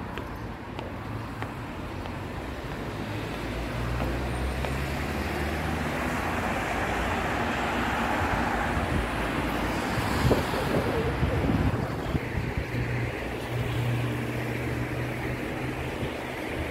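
Road traffic driving past on a main road below: a steady hum of engines and tyres. It swells as a louder vehicle passes about ten seconds in, then eases.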